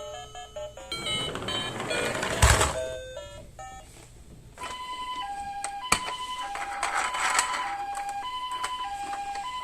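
A short chime-like jingle with a whoosh, then from about halfway a Japanese ambulance's two-tone hi-lo "pee-po" siren, alternating evenly between a higher and a lower note, with a single click along the way.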